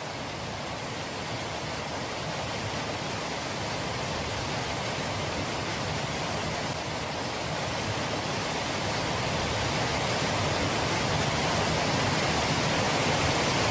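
Water pouring over the rim of a reservoir's bellmouth overflow spillway and falling into its shaft: a steady rush of falling water that grows gradually louder.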